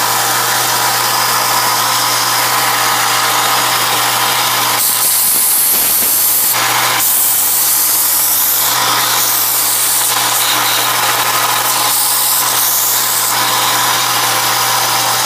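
Bench belt sander running steadily with its motor hum. An aluminum plate's corner is ground against the belt, giving harsher grinding passes about five and seven seconds in.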